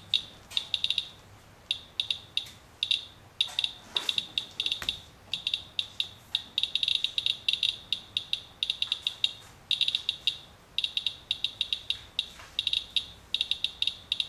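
Medcom Inspector Geiger counter chirping, many short high-pitched beeps at random, uneven spacing, some bunched close together and some with brief pauses between them. Each chirp is a detected count from a paper towel used to wipe rainwater off a truck, which the owner takes for radioactive fallout from a thunderstorm.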